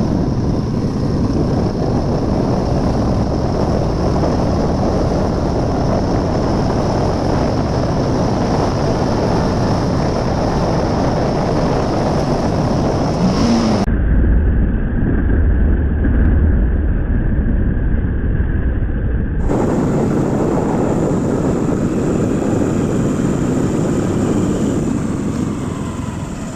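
Motorcycle under way: a steady rush of wind on the microphone over the engine's running. In the middle stretch the hiss drops away and a heavier low rumble takes over for a few seconds.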